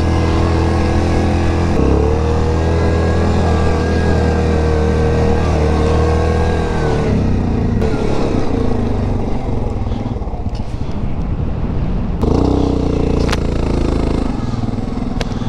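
Yamaha Grizzly 700's single-cylinder four-stroke engine running under steady throttle as the ATV climbs over grass. It eases off about seven seconds in, then pulls hard again about twelve seconds in, with a couple of knocks from the ride.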